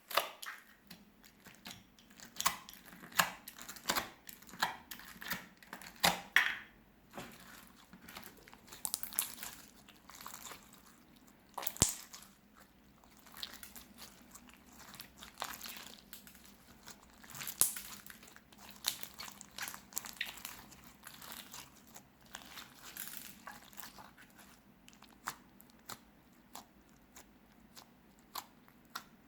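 Clear slime mixed with coloured rice being squeezed and pressed by hand, giving irregular crunchy crackles and pops. The crackling is busiest in the first half and thins out near the end.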